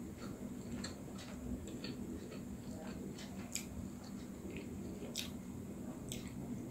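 Faint, scattered soft clicks and squishes of fingers pressing and turning a split steamed momo dumpling.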